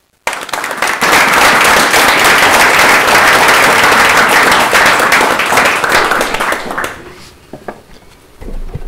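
Audience applauding: dense clapping that thins out to a few last separate claps about seven seconds in.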